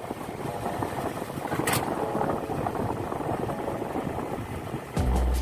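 Motor scooter running along at a steady speed, its engine and wind noise making a continuous rush. Background music with a heavy bass beat comes in about five seconds in.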